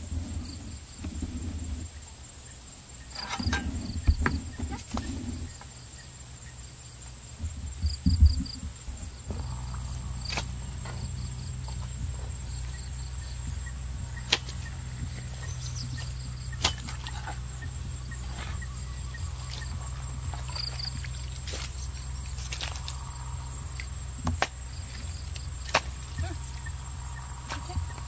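Insects buzzing steadily at a high pitch throughout, over outdoor ambience with thumps and steps in the first few seconds and scattered sharp clicks and knocks. A low steady rumble comes in about nine seconds in.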